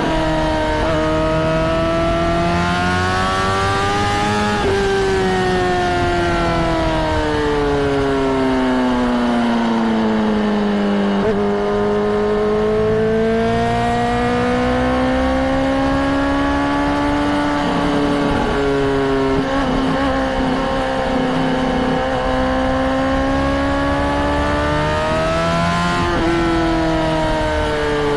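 Honda CBR600RR's inline-four engine running, its note rising and falling slowly over several seconds at a time, with a sudden break in pitch about four times.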